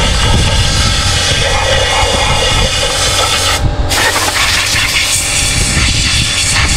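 Pressure washer running, its jet of water spraying against an intake manifold to rinse out dirt and carbon deposits, a steady motor hum under a loud hiss. The spray cuts out for a moment about halfway through, then resumes.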